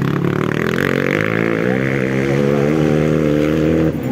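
Motocross dirt bike engine revving hard. Its pitch dips about one and a half seconds in, climbs steadily, then cuts off suddenly near the end.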